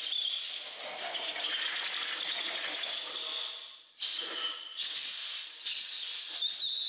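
Compressed-air blow gun with a long bent nozzle blasting into the head bolt holes of a Model T Ford's cast-iron engine block, clearing out debris from the chased threads. It makes a steady hiss with a high whistle, cuts off briefly just before four seconds in, then starts again at the next hole.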